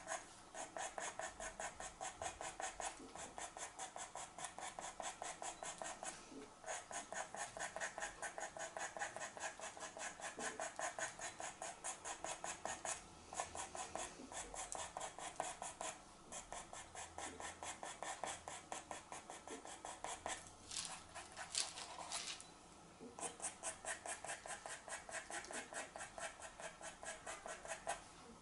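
Pastel pencil scratching on pastel mat paper in quick short strokes, about five a second, in runs broken by brief pauses as fur is hatched in.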